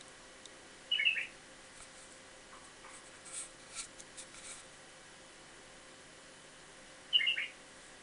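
White-eared bulbul giving two short chirping calls of a few quick notes each, about six seconds apart, with faint rustling and clicks in between.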